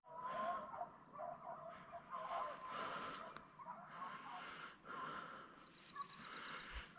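A distant pack of hunting hounds baying on a wild boar's trail, their cries overlapping and rising and falling without a break.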